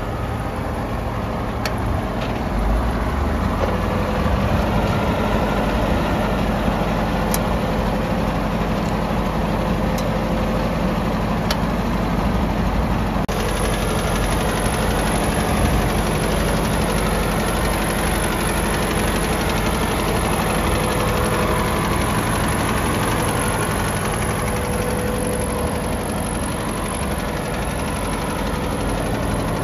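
Ford 860 tractor's four-cylinder gasoline engine idling steadily.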